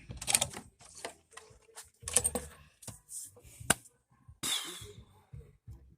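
Irregular clicks, taps and light knocks of hand work on a bird pen, with a short scraping rustle about four and a half seconds in.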